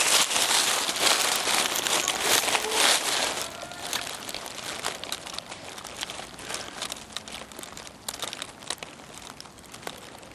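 Close rustling and crackling, loudest for the first three and a half seconds and then quieter, with scattered sharp clicks throughout.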